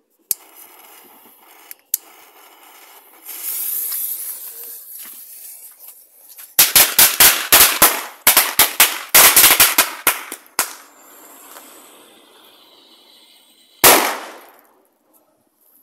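Pirata zebrotto firecracker set off: a few lighter clicks, then the fuse hissing for about three seconds. Then comes a rapid run of sharp cracks lasting about four seconds, and after a pause of about three seconds one heavy, deeper bang.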